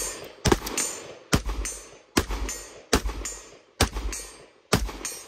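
A steady string of single gunshots, about one a second, six in a row, each followed by a ringing echo.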